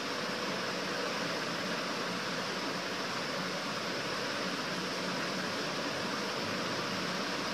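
A steady, even hiss of background noise, with no distinct sounds rising out of it.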